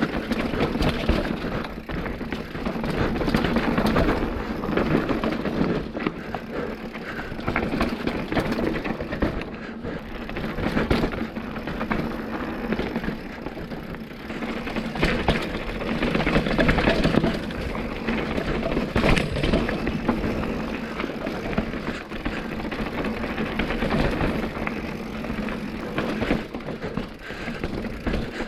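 Mountain bike being ridden over rocky trail: continuous tyre noise on rock and gravel, with many small knocks and rattles from the bike, swelling and easing in loudness.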